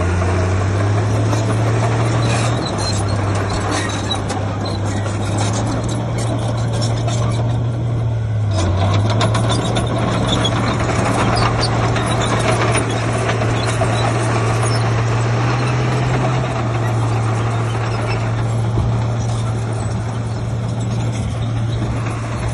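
Heavy diesel engine of an earthmoving machine running steadily, its pitch stepping up and down a few times, with a run of quick clicks and clatter around the middle.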